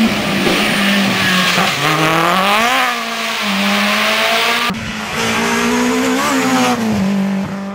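Rally car engines at high revs: the pitch climbs, drops back sharply as the car shifts, then holds high. The sound cuts abruptly about two-thirds through to another car running at high revs.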